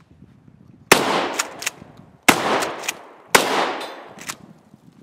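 Pump-action shotgun fired three times, a little over a second apart, each blast echoing off. Sharp metallic clacks of the slide being worked come between the shots.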